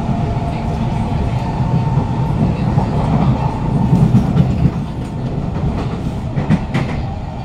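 Kawasaki C151 metro train running on the line, heard inside the car: a steady rumble of wheels and traction equipment with a faint steady motor tone. A couple of sharp clacks come from the wheels over the track about two-thirds of the way through.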